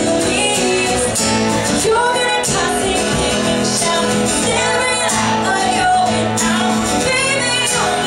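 A live band playing a song, with a woman singing lead over strummed acoustic guitar and the rest of the band.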